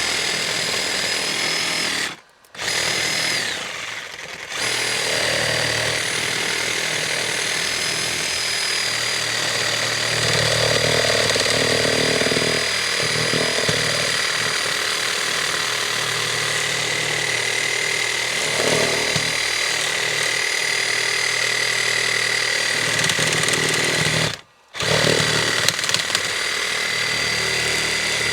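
Power saw running in long stretches with a steady high whine, cutting through hot tub PVC plumbing. It stops briefly about two seconds in and again near the end.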